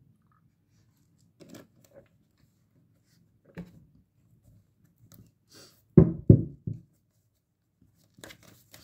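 Scattered soft taps and clicks, with three louder thumps in quick succession about six seconds in and a flurry of light clicks near the end.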